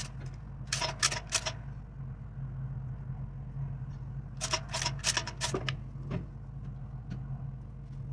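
Steel lifting chain and hook rattling and clinking in two short bursts, about a second in and again around five seconds in, over a steady low machine hum.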